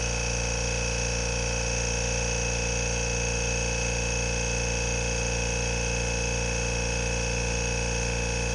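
Kobalt Quiet-Tech air compressor running steadily: an even hum with several steady higher tones above it, no change in speed.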